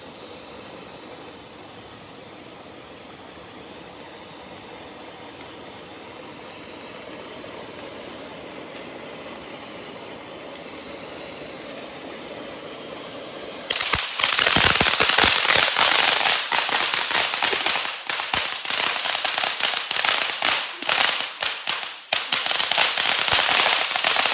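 Snow Chill fountain firework hissing steadily and faintly, building slowly, then bursting about 14 seconds in into loud, dense crackling that keeps going with brief dips.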